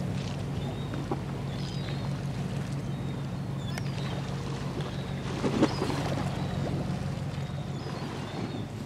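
Steady low drone of the passing general cargo ship Wilson Sky's engine, with faint short high chirps now and then and a brief bump about halfway through.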